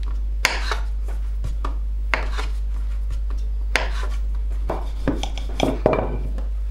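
Kitchen knife chopping through soft dough onto a plastic cutting board: a series of separate sharp taps, coming closer together near the end, over a steady low hum.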